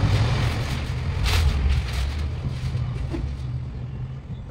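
Newspaper sheets rustling and crackling as they are handled, with a sharper crackle about a second and a half in, over a steady low rumble.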